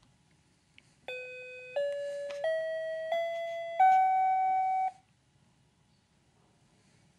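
An electronic chime plays five notes, each a little higher than the one before. The last note is the loudest and is held longest, then the sound cuts off.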